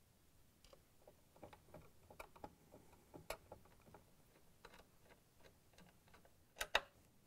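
Faint, irregular clicking of a Phillips screwdriver turning screws into a stand mixer's cover, with two louder clicks near the end.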